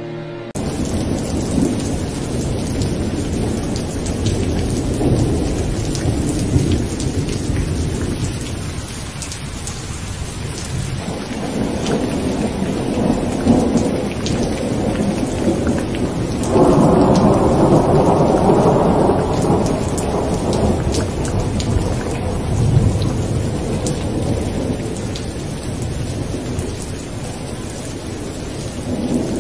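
Steady rain with rolling thunder: a hiss of rain over low rumbles that swell loudest about 17 seconds in. It starts suddenly about half a second in, as music cuts off.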